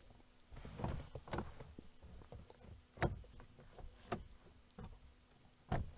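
A handful of separate clicks and knocks from a car's interior rear door handle and lock being worked, on a back door that will not open from inside. A faint steady hum lies under them.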